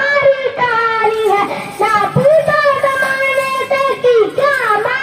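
A young girl's solo voice singing into a microphone, long held notes bending up and down between short breaks.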